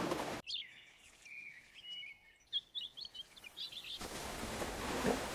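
Small bird chirping in short, high notes for about three and a half seconds. Steady rushing noise stops about half a second in and comes back near the end.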